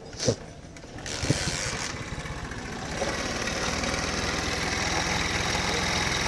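Honda CD 70's small single-cylinder four-stroke engine starting after a click about a second in and then running at idle, picking up a little at about three seconds, with a rattle from a worn timing chain.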